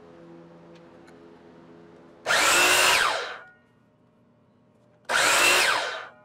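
Miter saw switched on twice for quick cuts through small wood strips, each run lasting about a second, its motor whine rising and then dropping away as the blade stops.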